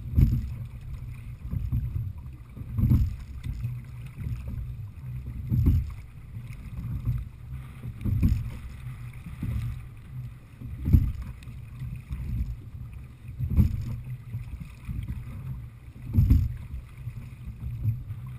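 Sculling stroke of an open-water sliding-seat rowing boat (a Little River Marine Heritage 18): a low thump about every 2.7 seconds as each stroke is taken. Under it runs a steady low rumble of wind and choppy water.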